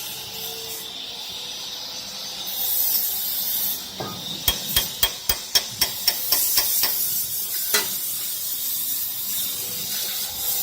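About ten sharp metallic clicks in quick succession a few seconds in, then a single click, from hand tools working the knife mount of a CNC wood lathe while the turning knife's height is adjusted. A steady hiss lies underneath.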